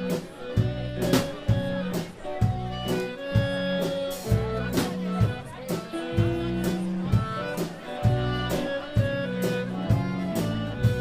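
Live blues band playing, with drums keeping a steady beat under bass and electric guitar.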